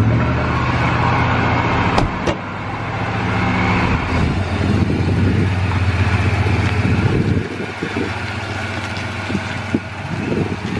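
A truck's supercharged 5.4-litre V8 running steadily with a low drone that drops away about seven and a half seconds in. There are a couple of sharp clicks around two seconds in.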